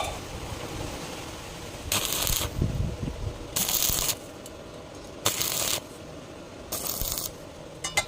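Four short, hissy scraping strokes, evenly spaced about a second and a half apart, like something rubbed or brushed across a hard surface.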